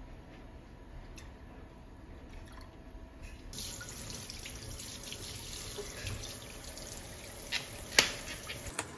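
A quiet low hum, then about three and a half seconds in a kitchen tap starts running, water spraying into a metal colander in a stainless steel sink. A few sharp knocks come near the end, the loudest about eight seconds in.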